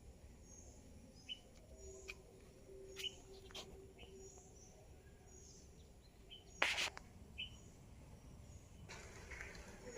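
Faint outdoor birdsong: short, high chirps repeated every second or so, with a few sharp clicks. A brief louder noise comes about six and a half seconds in.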